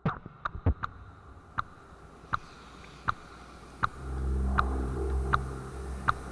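Intro music: a steady ticking beat, one sharp tick about every three-quarters of a second, joined about four seconds in by a low droning hum.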